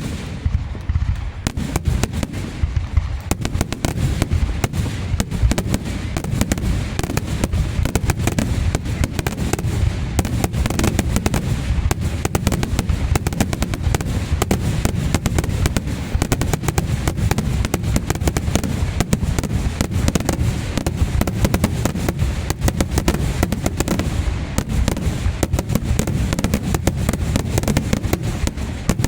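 Aerial fireworks going off in a dense, unbroken barrage of rapid, overlapping bangs and booms.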